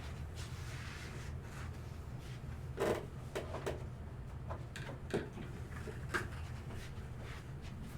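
Light handling noises: a few soft knocks and rustles, the loudest about three seconds in, over a steady low hum.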